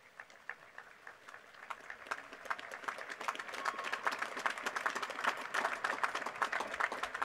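Crowd applauding: a few scattered claps at first, building over about two seconds into dense, steady clapping.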